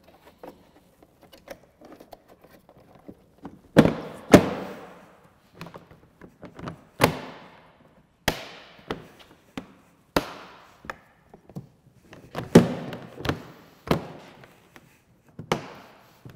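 Plastic hood and side panel of a snowmobile being pressed and snapped into place: about a dozen sharp knocks and thunks at uneven intervals, each dying away quickly, the loudest around four seconds in and again in the last third.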